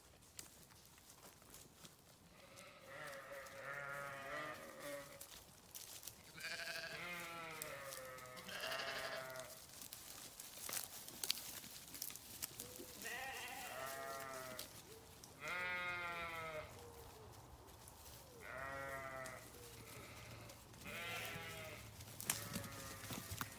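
Sheep bleating: about seven separate wavering calls, each roughly a second long, spread across the stretch with short pauses between them.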